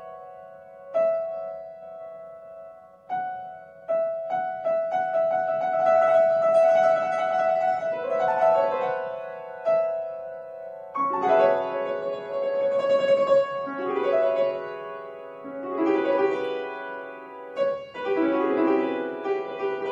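Solo grand piano playing, its struck notes left ringing. Sparse high notes and single attacks in the first half give way to fuller, louder chords reaching into the lower register from about eleven seconds in.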